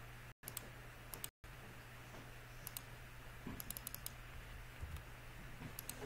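Faint computer keyboard keystrokes and mouse clicks: a few single clicks, then a quick run of about six keystrokes around the middle, over a steady low hum. The sound cuts out completely twice, for a moment each, in the first second and a half.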